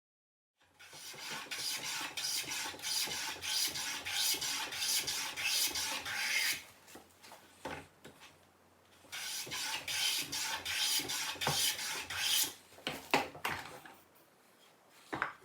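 A hand tool rasping on wood in quick repeated strokes. One run lasts about six seconds, then after a short pause a second run lasts about three seconds, followed by a few scattered strokes.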